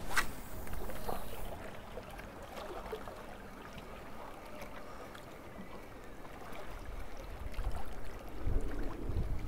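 Wind buffeting the microphone over the wash of the sea, with gusts growing louder near the end. A brief sharp hiss comes right at the start.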